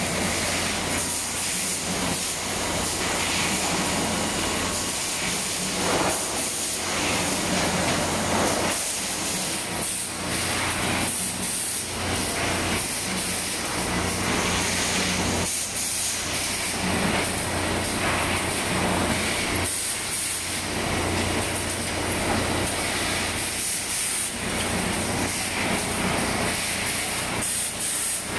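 Timber cross-cutting and planing line running: a steady machinery hum with hiss from conveyors and machines, broken by short high hissing bursts every few seconds.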